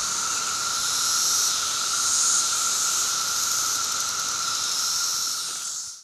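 Chorus of 17-year periodical cicadas, males singing to attract females: a loud, steady, hissing drone with a constant high tone, swelling slightly about one and two seconds in and fading out at the very end.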